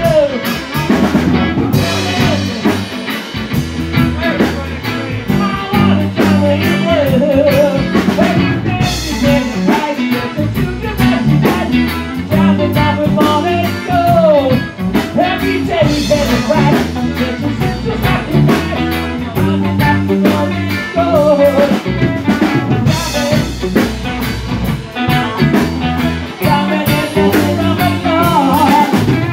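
Live band playing with electric guitars and a drum kit, loud and continuous.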